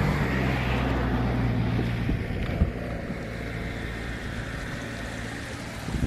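A vehicle engine humming steadily on the road, fading out about two and a half seconds in, with a single sharp knock as it goes. A steady rushing noise remains after it.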